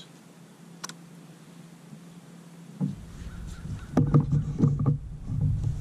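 Fishing rod being handled in a rod holder on a plastic kayak: a low rumble of rubbing comes in about three seconds in, then a quick run of sharp knocks.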